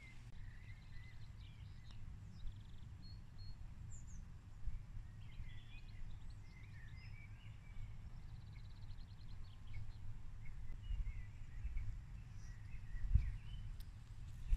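Birds chirping and trilling in scattered short calls over a steady low wind rumble on the microphone, with one brief low thump near the end.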